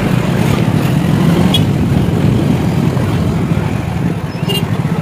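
Two-wheeler ridden through town traffic: a steady engine and wind rumble on the microphone, with two brief high chirps, one about a second and a half in and one near the end.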